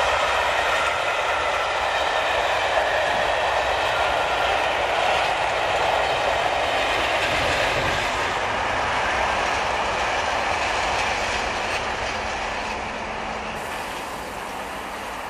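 A passenger train's coaches rolling past on the track, wheels on the rails making a steady rushing rumble that gradually fades as the train draws away.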